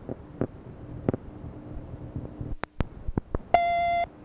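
Hiss from a PhoneMate answering-machine message cassette, with a faint hum and a few sharp clicks, a brief dropout, then near the end a loud half-second beep, one steady tone with many overtones: the answering machine's beep at the start of a recorded message.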